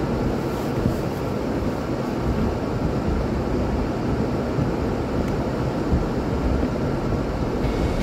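A car being driven: a steady low rumble of road, tyre and engine noise, with no distinct events.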